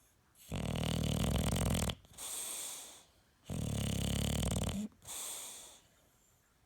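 A bully-breed dog snoring loudly: two rattling inhaled snores, each followed by a shorter, fading breathy exhale.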